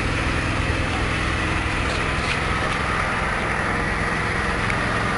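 Small 5.5 hp petrol engine running steadily, driving a horizontal pellet press.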